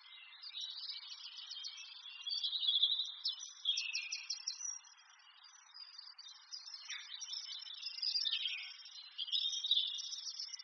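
Birds chirping and trilling in quick, high runs, with one short falling call about seven seconds in.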